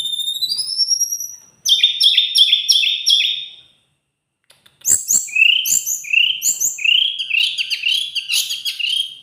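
A teledekan gunung songbird singing loud, fast, high-pitched phrases. First come rising whistles, then a rapid run of repeated notes. After a pause of about a second it sings a long series of quick rising notes. A couple of sharp little knocks sound just before the second phrase.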